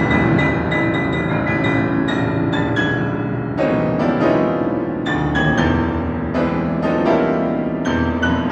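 Concert piano playing a dense, fast passage of struck notes and chords, with a full low register, in a classical piano concerto.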